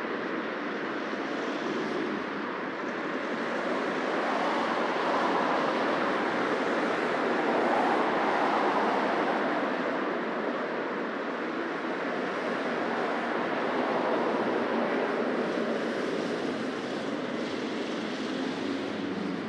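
Busy city street traffic: a continuous wash of cars passing close by, swelling as vehicles go past about 8 seconds in and again about 14 seconds in.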